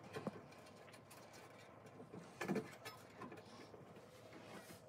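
Faint handling sounds of stainless-steel rotisserie parts being fitted together: small metal clicks and scrapes, with a louder knock about two and a half seconds in.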